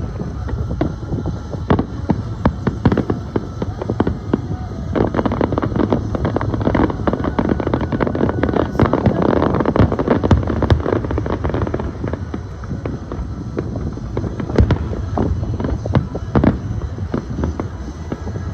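Fireworks going off: a dense, irregular run of pops and bangs, heaviest a little past halfway.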